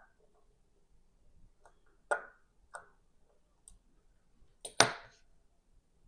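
Small metal watchmaking tools clicking and tapping against a mechanical watch movement: a few sharp, separate clicks, the loudest about three-quarters of the way through.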